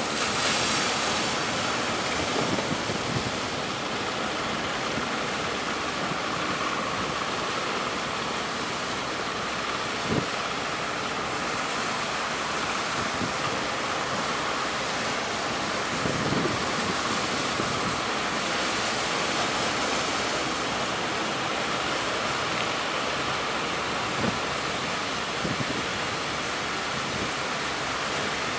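Waves breaking in a strong onshore wind, with wind buffeting the microphone; a steady rushing noise with a few brief knocks.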